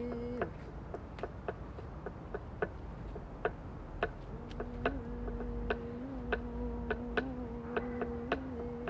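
A woman's voice humming one long low note that breaks off about half a second in and comes back about four and a half seconds in, with small wavers in pitch. Under it, irregular sharp clicks, about two or three a second, from two stones knocked together.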